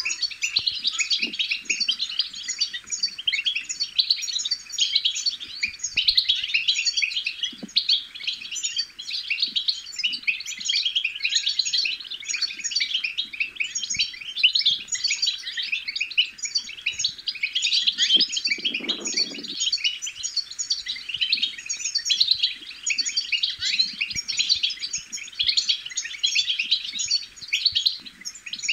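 European goldfinch chatter: fast, dense twittering with no pause. A brief low rustle comes in about two-thirds of the way through.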